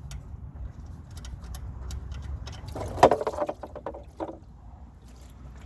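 Hot engine oil pouring out of the drain-plug hole into a drain pan, a steady splashing stream. A short clatter comes about three seconds in.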